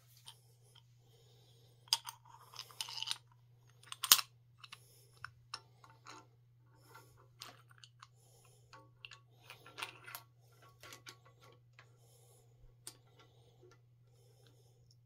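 Bicycle headset and stem parts being handled and fitted onto a bike frame's head tube: scattered light clicks and metal clinks, the loudest clack about four seconds in, over a steady low hum.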